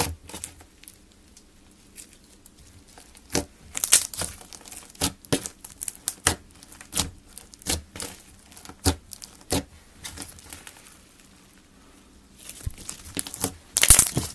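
Clear slime packed with foam beads being pressed, poked and folded by hand: irregular wet pops and crackles, with a quieter pause partway through and a dense burst of crackling near the end.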